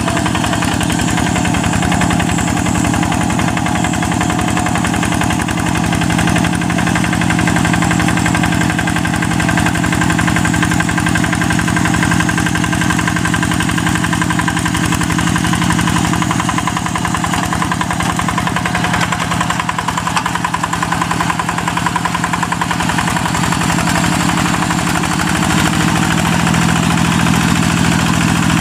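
Single-cylinder diesel engine of a Yanmar-engined G1000 two-wheel hand tractor running steadily under load as it works soft, wet paddy soil, with rapid, even firing pulses. The engine note softens slightly about two-thirds of the way through, then picks up again.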